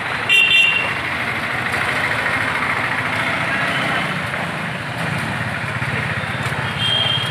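Vehicle engine running amid street traffic noise, with two short high-pitched beeps, one about half a second in and one near the end.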